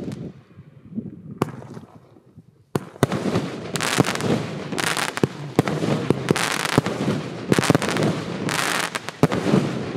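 Consumer fireworks: after a short lull with one sharp crack, a dense run of rapid bangs and crackle starts about three seconds in and carries on.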